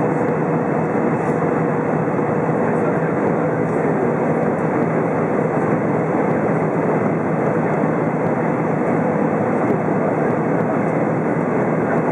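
Steady cabin noise inside an Airbus A320 airliner descending toward landing: engine and airflow noise heard from a window seat. A faint hum fades out in the first few seconds.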